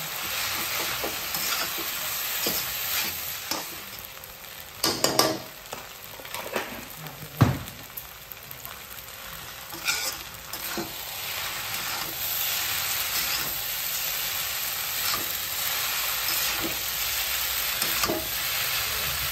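Veg chowmein noodles and vegetables sizzling in a hot black wok as a spatula stir-fries them, with the spatula scraping and knocking against the pan every few seconds.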